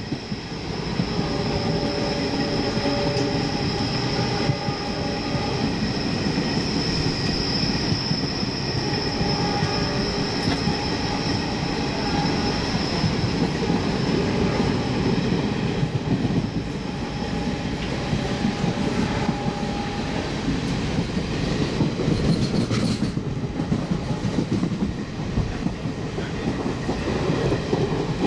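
Indian Railways passenger train running on the rails, with dense wheel-and-coach rumble throughout. A steady high wheel squeal runs for roughly the first half and then fades.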